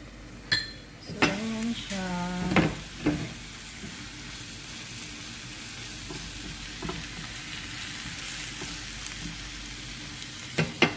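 Diced bell peppers, onion and tomato sizzling in oil in a frying pan. A few knocks and scrapes from the pan and its lid in the first three seconds, then steady sizzling, with a couple of clicks near the end.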